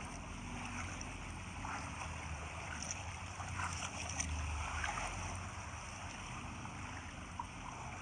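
Shallow seawater washing and lapping at the shore, with a low steady rumble underneath and a few faint splashes.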